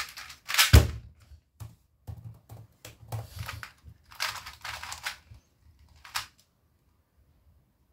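A 2x2 speed cube being turned fast, its plastic layers clicking, with a sharp thump under a second in as the solve ends. Then several short bursts of turning clicks as the cube is turned again, stopping about six seconds in.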